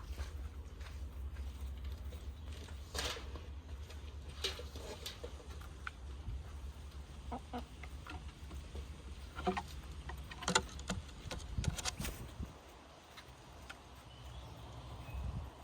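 Domestic hens clucking in short, scattered calls, with small clicks and taps among them, over a low steady rumble that drops away about twelve seconds in.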